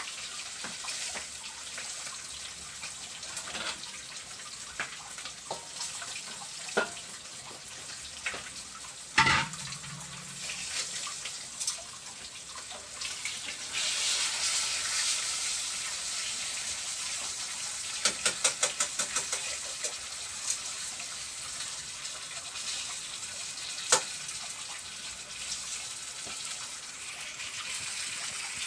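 Food frying in hot oil in a pan: a steady sizzle, with a few sharp knocks of a utensil against the pan and a quick run of clicks about two-thirds of the way in.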